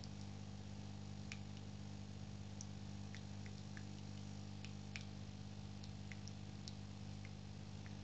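Philips automatic espresso machine giving a faint steady low hum, with scattered light ticks and clicks at irregular moments.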